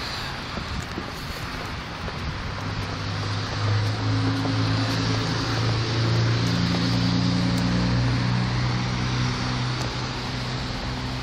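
Blizzard wind blowing steadily, with a vehicle engine's low drone coming in a few seconds in, swelling through the middle and fading near the end as it passes.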